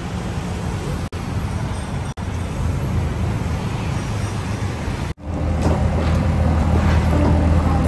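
Street traffic noise from cars and motorbikes running along a busy road, broken twice by a split-second dropout. About five seconds in it cuts off abruptly, and a steady low hum of an indoor room follows.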